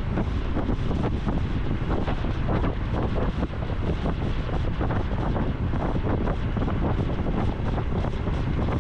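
Wind buffeting the microphone over the running engine and exhaust of a Honda Super Cub C125, its small single-cylinder four-stroke, while riding along. It is steady throughout, with the rumble heaviest at the low end.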